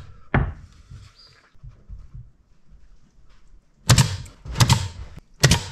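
A cordless nailer firing three times in a row, driving nails into the corner of a wooden box: three sharp shots, the first two close together and the third about a second later. A single wooden knock sounds shortly before, as the top piece is set on the box.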